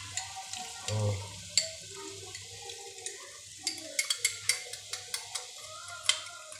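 Water poured from a glass into a pot of spice masala, then a spoon tapping and scraping against the glass tumbler in a quick run of light clicks from about the middle on.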